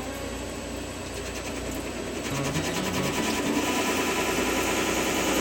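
Shop machine tool running on metal stock with a fast, even chattering rhythm, getting louder about halfway through, with background music underneath.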